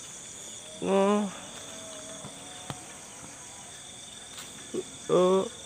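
Crickets and other insects chirring steadily and high-pitched, with two short vocal calls, one about a second in and one near the end.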